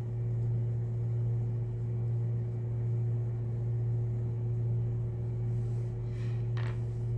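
Steady low hum with a fainter steady higher tone, and a faint brief sound about six seconds in.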